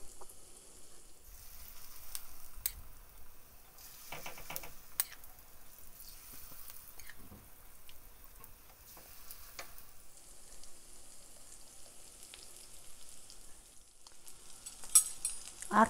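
Herb-and-egg omelette batter frying in hot sunflower oil in the cups of a multi-well pan: a steady sizzle. A few clicks and a short scrape of the spoon against the pan as more batter is spooned in.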